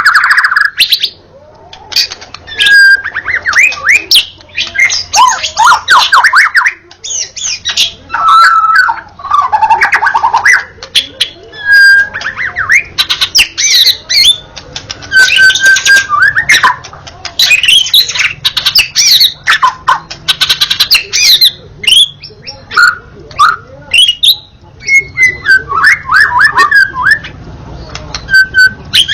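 White-rumped shama singing vigorously: loud bursts of rapid, varied whistles, trills and harsh chattering notes with sharp clicks, broken by short pauses.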